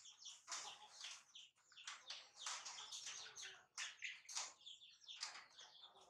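Faint, rapid high-pitched chirping: many short chirps, several a second, keeping up without a break.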